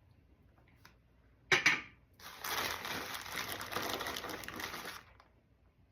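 Rocks and packing being handled in the box while the next specimen is taken out: a sharp knock about a second and a half in, then about three seconds of continuous rustling and clinking.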